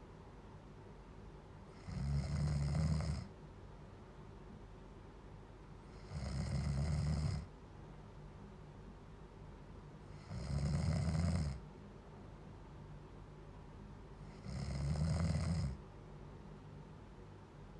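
A person snoring loudly. Four long, low snores come about every four seconds, each lasting just over a second, with quiet in between.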